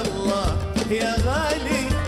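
Live Khaleeji (Gulf Arabic) band music: a male singer sings ornamented, gliding phrases over a steady drum rhythm and band accompaniment.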